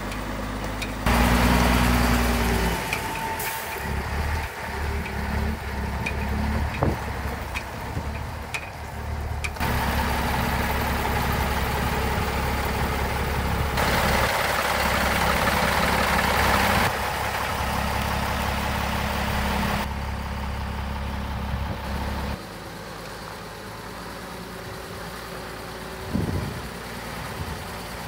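Scania LS 111 truck's 11-litre straight-six diesel running steadily. Its level and tone change abruptly several times, with a louder stretch about a second in.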